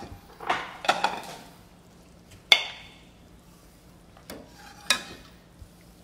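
Metal ladle scraping and clinking against an enamelled pot and a ceramic bowl as soup is ladled out. There is one sharp, ringing clink about two and a half seconds in, the loudest sound, and a couple of lighter clinks near the end.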